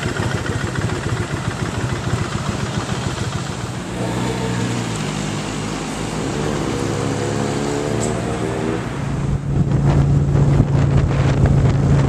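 Motorcycle engines running. About four seconds in, an engine note rises as a motorcycle pulls away. From about nine seconds in, a steady engine drone plays while riding at speed, with wind buffeting the microphone.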